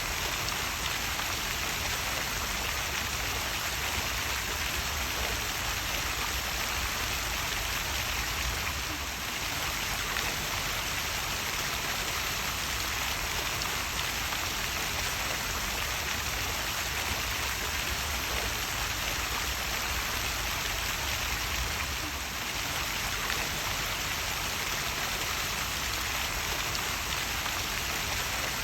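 Small waterfall: water splashing and pouring in a steady, even rush.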